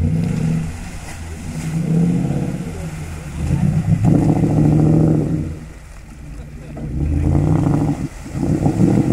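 Four-wheel-drive SUV engine revving in repeated surges, rising and falling several times, as the vehicle pushes through a shallow river ford.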